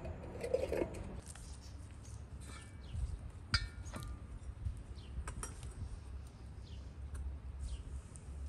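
Outdoor ambience: scattered short bird chirps over a steady low rumble, with a sharp click about three and a half seconds in.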